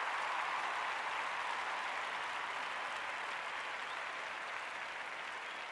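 Crowd applauding and cheering, a steady wash of noise that slowly fades.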